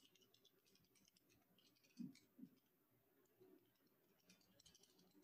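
Near silence, with faint, scattered computer keyboard and mouse clicks as text is typed, and two brief soft low sounds about two seconds in.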